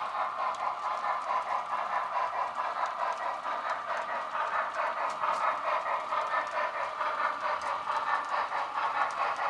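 HO scale model trains running on the layout, giving a steady train sound with a quick, even pulse.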